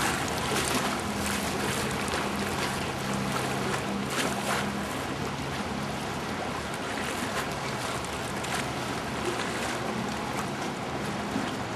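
Water lapping against a stone quay under wind noise on the microphone, with a faint steady low hum for the first few seconds.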